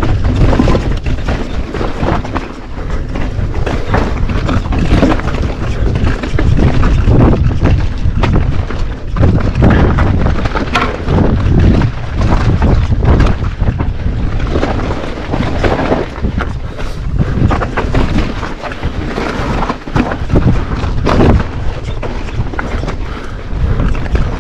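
Downhill mountain bike bouncing fast over rock: a continuous clatter of tyres striking stone and the bike's frame and parts rattling, with many sharp knocks. Heavy wind buffets the rider's camera microphone throughout.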